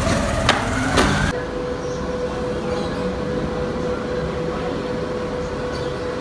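A few footsteps in sandals on concrete stairs, then, after a cut, a steady hum with one thin unchanging tone over a low, even noise.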